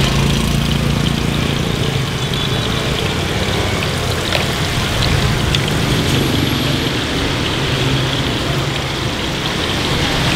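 Battered banana pieces deep-frying in a pot of hot oil, a steady sizzle, over the running engines of street traffic and passing motorbikes.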